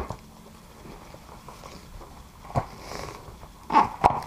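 Handling noise from a mountain-bike tyre being worked onto its rim by hand: a click at the start, a knock about two and a half seconds in, and a louder cluster of knocks near the end.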